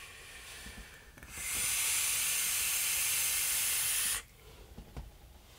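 A draw on a Rashomon 24mm rebuildable dripping atomiser (RDA) vape: air hissing in through its airflow. The hiss starts faintly, turns steady and louder for about three seconds, and stops abruptly about four seconds in.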